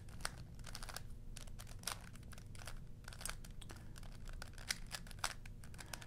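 Plastic 3x3 Rubik's Cube being turned by hand through a move sequence, its faces clicking and clacking irregularly as the layers are twisted one after another.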